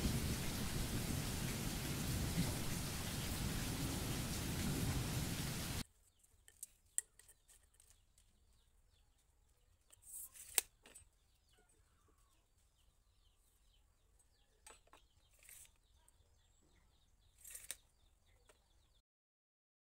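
Steady heavy rain, a dense even hiss with a low rumble, which cuts off abruptly about six seconds in. After it come only faint scattered clicks and short scrapes of hand tools, a tape measure and marker pen, on the wooden board.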